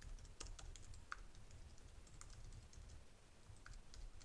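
Faint computer keyboard typing: irregularly spaced keystrokes as a command is typed.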